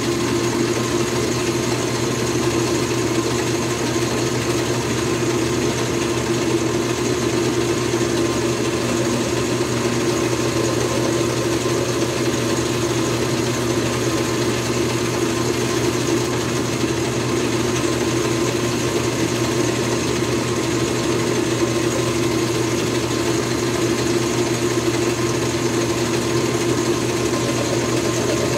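Metal lathe running steadily with the round bar stock spinning in its chuck, giving an even motor and gear hum with no change in pitch.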